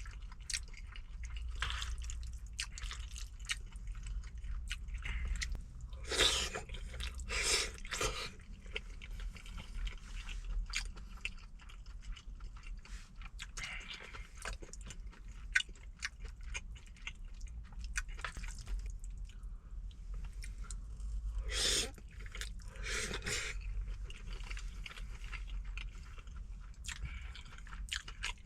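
Close-miked eating: wet chewing and lip smacking of braised chicken and rice mixed in sauce, with many small clicks and a few louder bursts about six to eight seconds in and again around twenty-two seconds. A low steady hum runs underneath.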